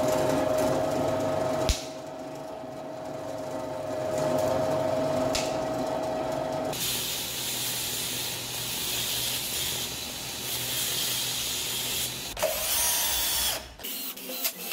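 Power tools in succession. First a bench drill press boring into wood with a steady motor hum. From about halfway it gives way to the high hiss of a belt grinder grinding steel, and near the end there is a brief rising whine of a cordless drill spinning up.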